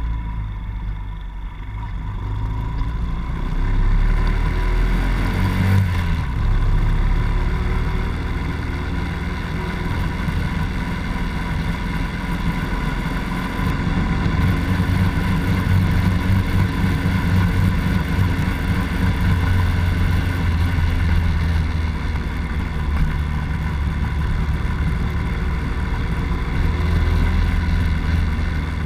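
Honda Dax 70's small four-stroke single-cylinder engine running under way, its pitch rising and falling with the throttle, louder from about four seconds in.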